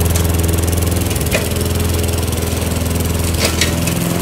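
Lawn mower engine running steadily, with a few short clicks over it about a second in and again near the end.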